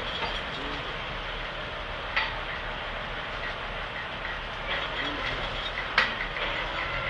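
Heavy machinery running steadily, with two sharp metallic knocks, one about two seconds in and a louder one about six seconds in.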